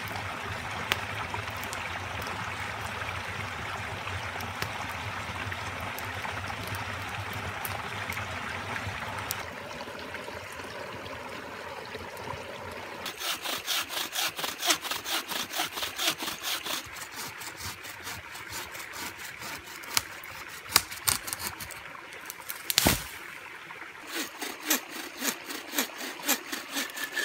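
Wooden-framed bow saw cutting through a thin standing tree trunk in quick, even back-and-forth strokes, about three a second, with a single sharp knock in a pause before a second run of strokes near the end. Before the sawing there is a steady rushing noise.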